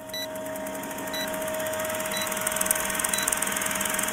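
Old film projector sound effect: a rapid steady clatter over a steady hum tone, with a short high beep about once a second as a film countdown leader ticks down.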